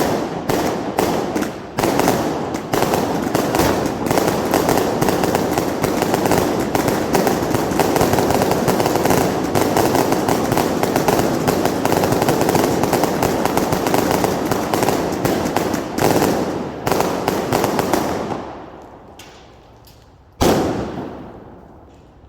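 Category F2 consumer firework batteries firing in a dense, unbroken barrage of bangs and crackles that fades out about eighteen seconds in; one last loud bang comes near the end and dies away.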